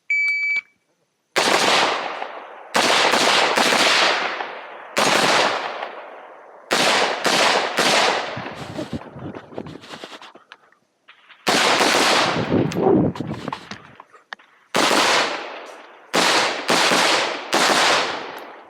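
A shot timer gives one short, high steady beep, and then a competition rifle fitted with a muzzle brake fires strings of shots: singles and quick doubles and triples, each crack followed by a long echoing decay, with pauses of a second or more between groups as the shooter moves through the stage.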